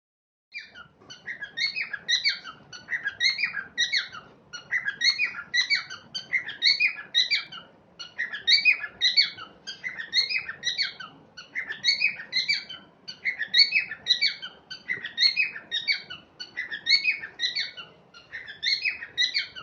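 Small pet parrot chirping steadily, repeating short, high phrases of a few quick notes about once a second.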